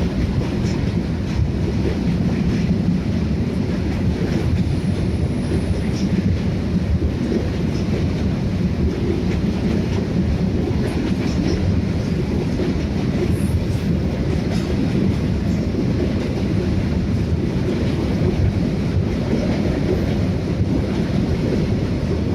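Freight train wagons rolling past, a steady loud rumble of steel wheels on the rails with a few faint clicks.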